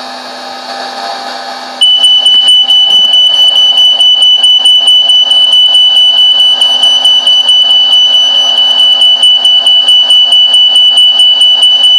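A steady appliance-like hum, then about two seconds in a smoke detector goes off: a loud, piercing high-pitched tone with a fast stutter that keeps sounding. It has been set off by smoke from popcorn cooking in oil.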